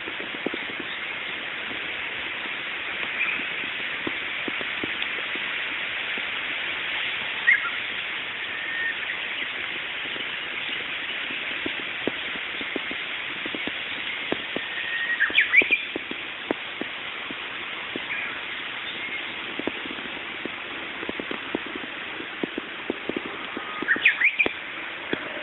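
Steady outdoor background hiss, with faint ticks and, three times, a short high chirping call.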